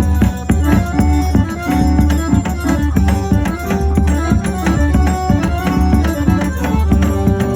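Forró band playing an instrumental passage: sustained melody notes over a steady, driving drum beat with heavy bass.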